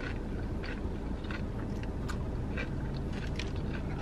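Close-up chewing of crunchy nacho tortilla chips: a run of small, irregular crunches over a steady low rumble.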